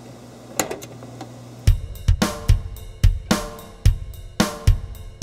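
A faint hum with a single sharp click, the electric stove's control knob being turned, then background music with a steady drum-kit beat, bass drum and cymbals, coming in loudly about a second and a half in.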